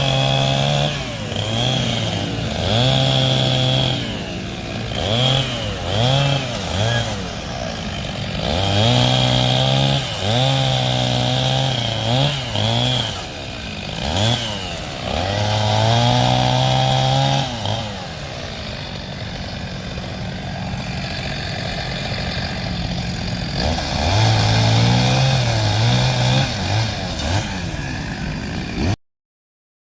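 Two-stroke chainsaw throttled up and down over and over, held at high revs for a few seconds at a time between drops, with a steadier lower-revving stretch in the middle. The sound cuts off abruptly near the end.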